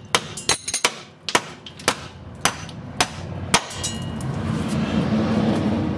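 Hammer tapping the end of a 2005 Jeep Grand Cherokee's upper control arm bolt to drive it out of its bracket: about eight sharp metal-on-metal strikes, roughly half a second apart, stopping about three and a half seconds in. In the last two seconds a steady noise slowly grows louder.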